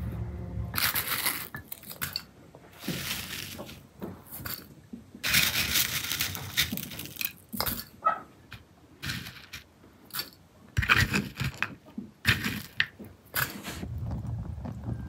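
Kitchen handling sounds: irregular clinks of dishes and utensils, with several longer scraping or rustling passes.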